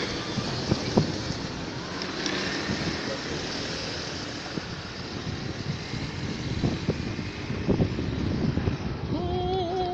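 Wind rumbling on the microphone, with scattered knocks of footsteps on the wooden plank deck of a pontoon bridge. Near the end a wavering pitched tone starts.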